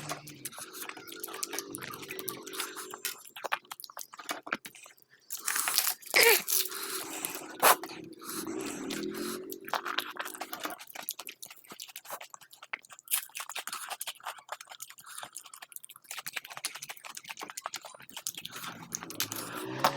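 A person eating close to the microphone: wet chewing and crunching of crisp food, with a few loud crunchy bites around the middle.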